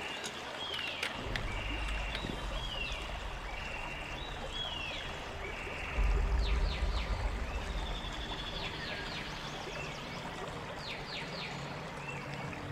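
Birds calling over the steady sound of flowing river water: one falling whistle repeated about once a second, later joined by quick runs of three or four falling notes. A low rumble comes in about a second in and is loudest about six to seven seconds in.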